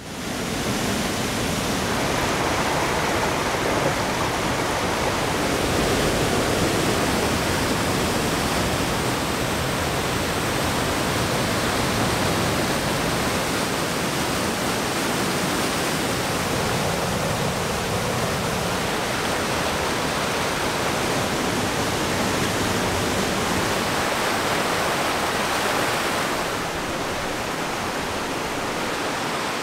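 Rushing water making a steady, even rush, a little quieter from about 26 seconds in.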